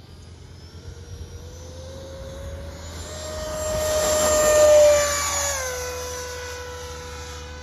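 Freewing F5 Tiger RC jet's 12-blade electric ducted fan whining on the takeoff run, rising in pitch and loudness, loudest about five seconds in, then dropping slightly in pitch and fading a little as the jet climbs away. It sounds weird and sickly, which the owner puts down to the 12-blade fan not suiting the motor.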